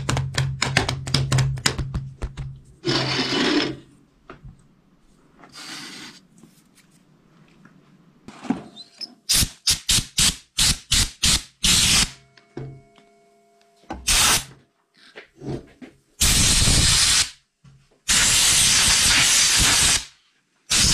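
Hand work on a truck fuel pump and sending unit assembly: a run of sharp clicks and clacks of tools and parts, then near the end two loud bursts of even hissing noise, about one and two seconds long.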